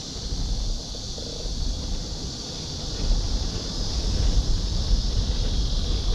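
Wind buffeting the microphone of a moving scooter: a low rumble that gets louder about halfway through, over a steady high hiss.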